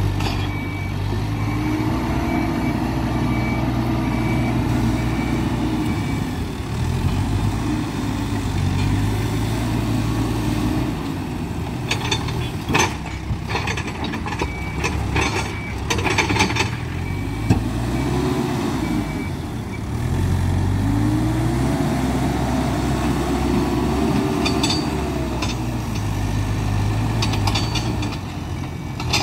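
Hidromek 102B backhoe loader's diesel engine revving up and down over and over as it works, with its reversing alarm beeping at times. Through the middle comes a run of sharp clanks and clatter, loaded material and the steel bucket knocking.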